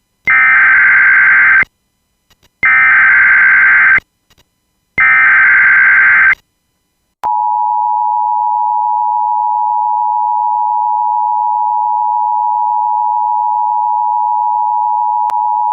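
Emergency Alert System broadcast alert. It opens with three bursts of SAME digital header data tones, each about a second and a half long. Then, about seven seconds in, the steady two-tone EAS attention signal begins and holds.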